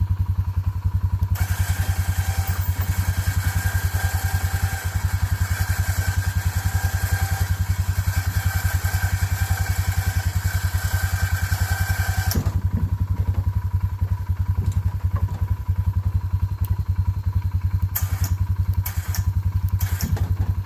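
ATV engine idling steadily while its electric winch runs with a whine, hauling a garage door panel up over a pulley; the winch stops about twelve seconds in. A few knocks follow near the end.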